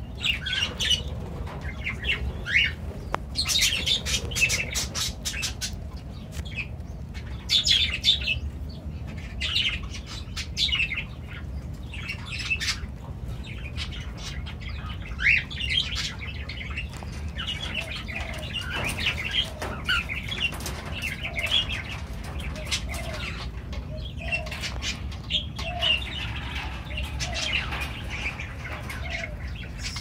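Cockatiels and other small aviary birds chirp in short, repeated bursts. Sharp close-up clicks and rustles come from a cockatiel working a feather in its beak right at the microphone, over a steady low rumble.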